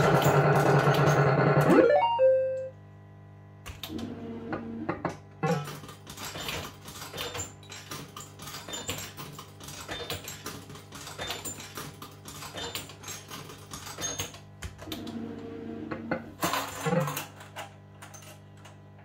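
JPM Hot Pot Deluxe fruit machine sounds: an electronic jingle that stops about two seconds in, then, after a short pause, rapid clicking and bleeping with short tones now and then, ending shortly before the end.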